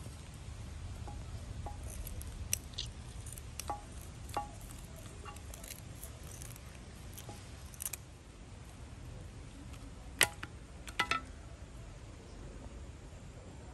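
Serrated kitchen scissors snipping through the head of a tongue sole (flatfish): a scattering of short, sharp snips and clicks, the loudest a few close together about ten seconds in.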